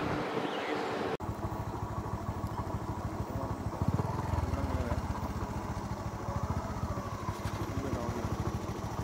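Wind noise and traffic, then after a sudden cut about a second in, a vehicle engine idling with a steady, rapid pulse, briefly louder about four seconds in.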